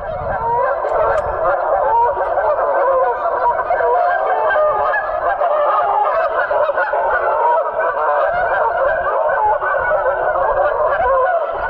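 A large flock of geese honking together in a dense, continuous chorus of overlapping calls, starting suddenly, with wind rumbling on the microphone underneath.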